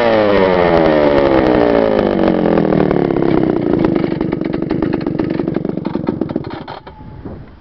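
Stihl 076 AVEQ 111 cc two-stroke chainsaw coming down off high revs, its pitch falling over the first few seconds, then running at a steady idle before it stops about seven seconds in.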